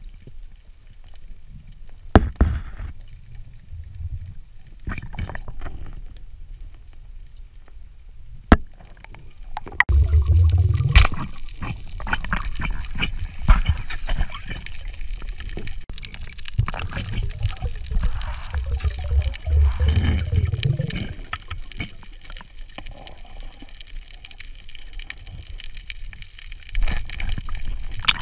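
Water sounds picked up by an underwater camera: muffled gurgling and bubbling over a low rumble, louder from about ten seconds in, with a few sharp clicks, the clearest about two and eight and a half seconds in.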